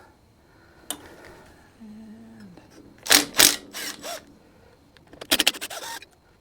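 Hand tools working on an old Briggs & Stratton engine: metal scraping and clicking in a few short bursts, about three seconds in and again near the end.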